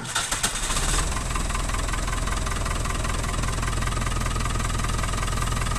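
Old JCB 3 backhoe loader's diesel engine idling steadily just after starting. It settles about a second in, with an even, rapid firing beat.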